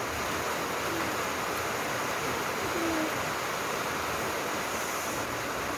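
Heavy rain falling steadily, a constant loud hiss. A few faint, short low tones sound over it.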